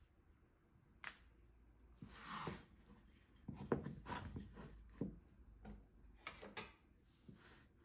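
A block of wild cherry wood handled on a wooden tabletop: soft sliding and rubbing, with a run of light knocks and taps in the middle as the block is lifted and turned over, and a few more as it is set down.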